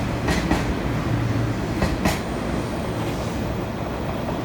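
JR 185 series electric train pulling out of the station, with a steady low rumble and wheels clacking over a rail joint in two quick pairs about a second and a half apart.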